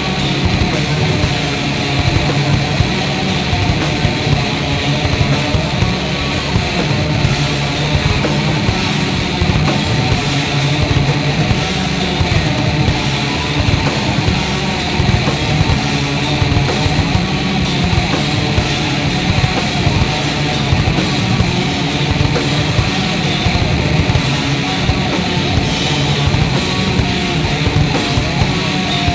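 Heavy doom/noise rock played loud, with distorted guitar, forming a dense, unbroken wall of sound.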